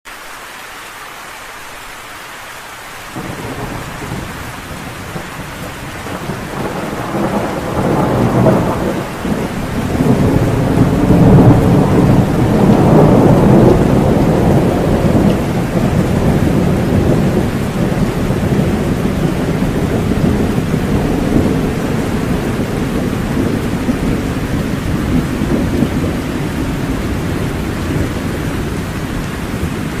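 Steady rain falling, with thunder rolling in about three seconds in. The thunder swells to its loudest between about ten and fifteen seconds in, then settles into a long low rumble under the rain.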